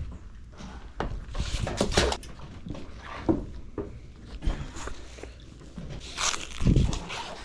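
Gloved hands handling and coiling a magnet-fishing rope: irregular rustles and scrapes, with a heavy thump near the end.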